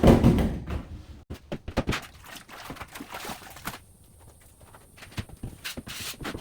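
A loud thump right at the start, then scattered light knocks, clicks and scrapes of hand work on drywall.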